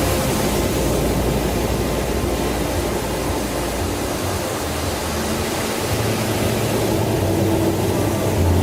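Steady rushing noise over a low, even hum.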